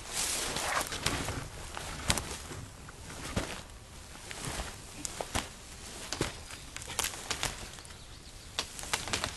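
Footsteps through forest undergrowth as a man hauls on a rope-and-pulley line, stepping back over twigs and brush: irregular cracks and rustles underfoot.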